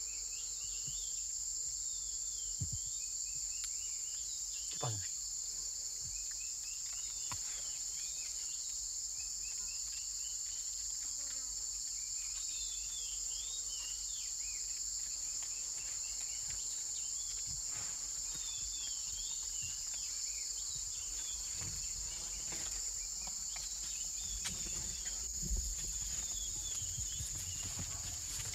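Steady, high-pitched chorus of jungle insects, with scattered short chirping calls beneath it and a few soft knocks.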